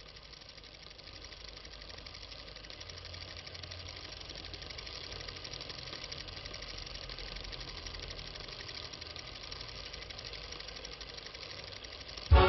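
A fast, steady mechanical rattle over a low hum, slowly growing louder. Loud music cuts in right at the end.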